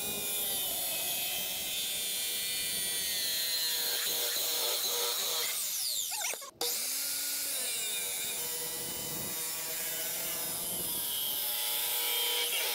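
Chop saw cutting through stainless steel exhaust pipe: a steady, high grinding whine. It breaks off briefly about six and a half seconds in, then a second cut runs, together taking a wedge out of the pipe for a bend.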